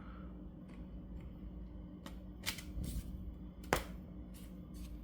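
3D-printed PLA plastic parts clicking and knocking as they are handled and fitted together: a few scattered taps from about two seconds in, the sharpest one near three-quarters of the way through, over a low steady hum.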